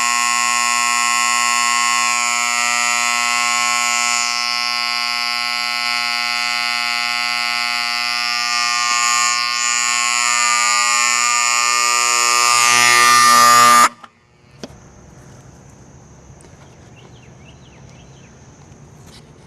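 Wheelock 31T electromechanical horn alarm on a sewage lift station, sounding a very loud, steady buzzing blare. About two-thirds of the way through it is switched off and cuts out suddenly, leaving a brief echo.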